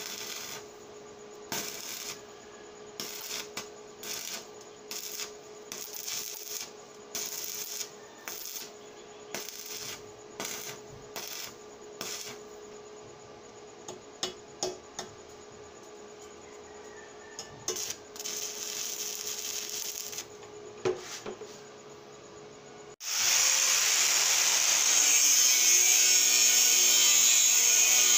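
Electric arc welding on a metal frame: short crackling bursts of the arc, one after another, as tack welds are struck, over a steady hum. Near the end a much louder continuous noise starts suddenly.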